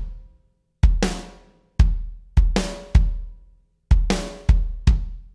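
A slow drum beat of live-recorded kick drum and an EZdrummer sampled snare triggered at full velocity, the snare cracking on the backbeat about every second and a half with a ringing decay.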